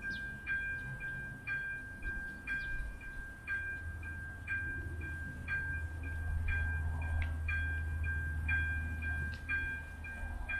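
Czech level crossing warning bell ringing with a clear tone, struck about once a second, which signals that the barriers are down and a train is due. A low rumble underneath grows louder from about halfway through.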